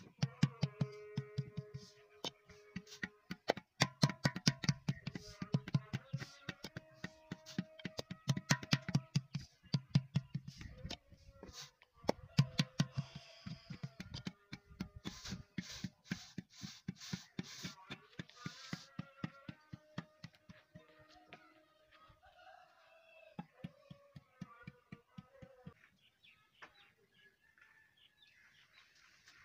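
Wooden paddle rapidly beating the wall of an unfired clay water pitcher, several sharp slapping strikes a second with a dull thud, as the potter shapes and thins the wall against an anvil held inside. The strikes grow fainter about two-thirds of the way through.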